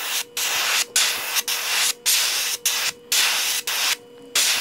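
Airbrush spraying chartreuse paint onto a wooden lure: a hiss switched on and off in short bursts, about two a second, with a brief pause near the end.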